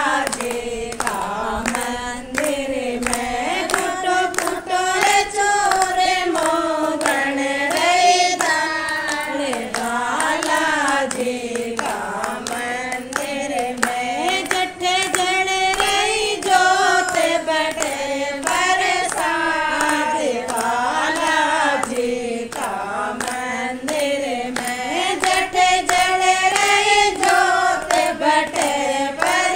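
A Rajasthani devotional bhajan to Balaji (Hanuman) is sung in a flowing, ornamented melody, accompanied by a steady beat of hand claps.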